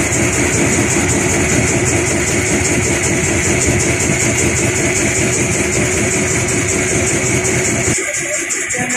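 An engine running at a steady idle, its low pulsing hum cutting away abruptly near the end.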